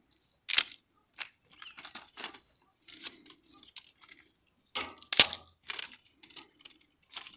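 Dry wood and kindling being handled and stacked for a bonfire: irregular sharp knocks, cracks and rustles, the loudest crack about five seconds in.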